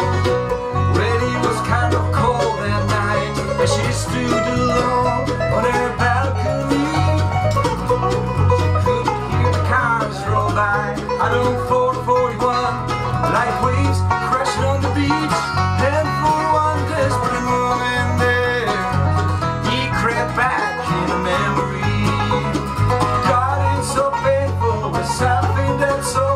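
Bluegrass band playing live: banjo, mandolin, acoustic guitar and electric bass guitar, the bass keeping a steady pattern of low alternating notes under the plucked strings.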